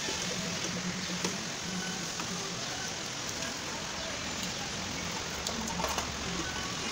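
Steady even hiss, with a few light clicks and taps as the parts of a dismantled front-loading washing machine are handled.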